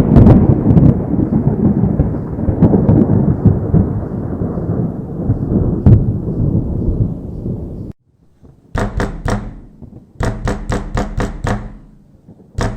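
Thunder rumbling loudly and slowly dying away, cut off abruptly about eight seconds in. Then short groups of sharp percussive beats over a steady bass, like music, come in.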